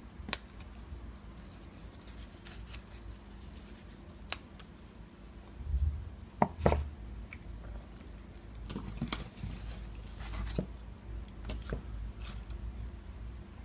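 Hands working an African violet's root ball apart, with soft rustling of potting mix and leaves and scattered small clicks and taps. A couple of sharper knocks with a low thud come about six seconds in, as the plant is set down on the table.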